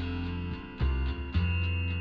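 Background music: strummed and plucked guitar over a steady bass line, a new chord or note sounding about every half second.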